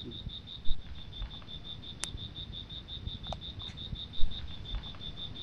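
A night insect, such as a cricket, chirping in a steady, fast, high-pitched pulsing of about ten pulses a second. There are two short thumps, one under a second in and one about four seconds in.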